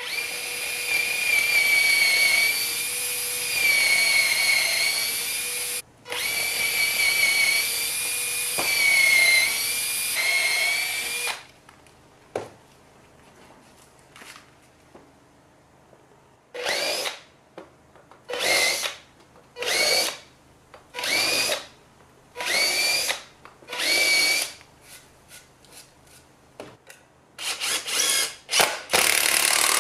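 Cordless drill boring pilot holes through a thick softwood block: a long run of the motor under load, its pitch wavering, with one short break. Then six short bursts of the trigger about a second and a half apart, and near the end a quick string of bursts running into a steady run as the drill starts driving a long wood screw.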